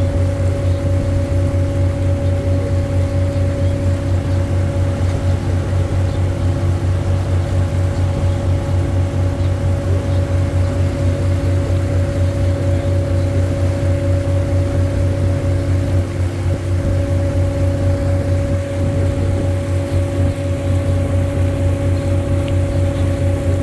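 River cruise boat's engine running at a steady speed: a constant low drone with a steady hum above it.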